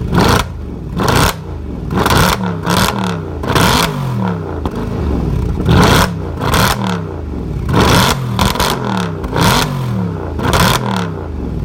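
Mercedes-Benz C63 AMG's modified M156 6.2-litre V8 revved through its exhaust in about a dozen quick throttle blips, the revs falling back after each one.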